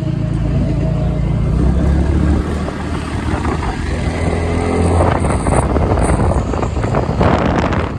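Riding a motor scooter: the engine running under a loud, uneven rumble of wind buffeting the microphone.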